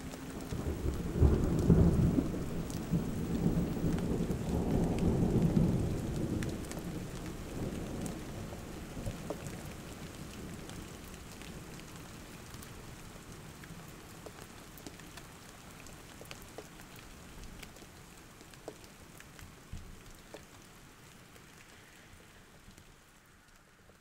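Rain falling, with a long roll of thunder in the first few seconds; the rain then fades slowly away.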